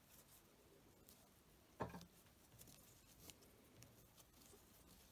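Near silence with faint rustling and light clicks of a crochet hook working thick polyester cord, and one short soft knock about two seconds in.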